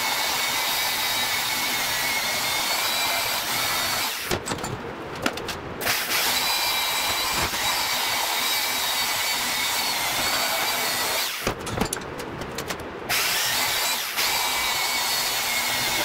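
Handheld power tool cutting through the Ford torque tube: a steady whine over a hissing cutting noise. It stops twice, about four seconds in and again around eleven and a half seconds, each time for a second or so, with a few clicks in the pauses.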